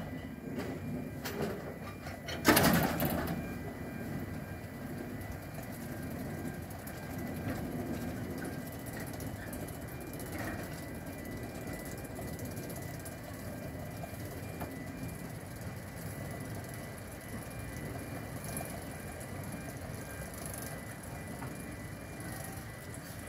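Small narrow-gauge diesel locomotives running with a steady low rumble as a train of wagons pulls away. A loud, sudden burst of noise comes about two and a half seconds in and dies away within a second.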